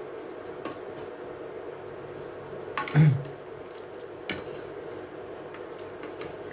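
Plastic spoon turning a half chicken over in a pot of simmering water, with light knocks of the spoon against the pot and the loudest knock about three seconds in. The chicken is being flipped so it cooks evenly. A steady hum runs underneath.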